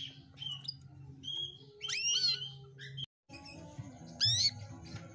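Female domestic canary calling: separate short chirps and quick upward-sweeping whistled notes, the loudest near the end. A steady low hum runs underneath, and the sound cuts out for a moment about three seconds in.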